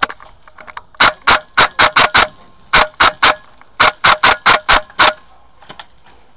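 Airsoft rifle fired in rapid semi-automatic shots, about four a second, in three strings of six, three and six sharp, loud cracks.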